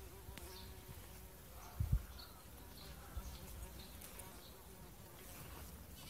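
A bumblebee buzzing as a steady hum that fades out about a second and a half in, with faint bird chirps. A brief low rumble comes about two seconds in.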